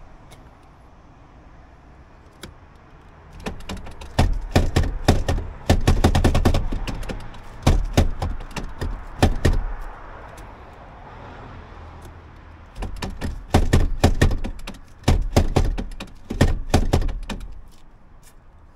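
Rapid runs of knocks and clunks in two bursts, the first starting a few seconds in and lasting about six seconds, the second lasting about five seconds and stopping shortly before the end.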